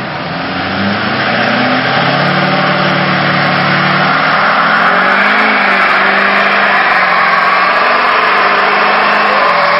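Lifted Chevrolet Silverado's engine revving hard while its rear tires spin on the pavement in a burnout. The engine note climbs over the first few seconds, then holds high as the hiss of the spinning tires builds.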